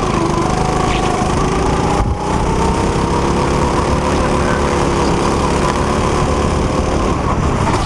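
Go-kart engine heard from the driver's seat, running at high revs under load through a corner; its pitch dips briefly about two seconds in, climbs a little, then holds steady.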